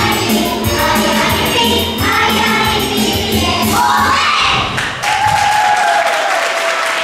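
Young children's choir singing into microphones over an accompaniment with a pulsing bass line. About five seconds in the accompaniment stops and the children hold one long final note that falls away at the end.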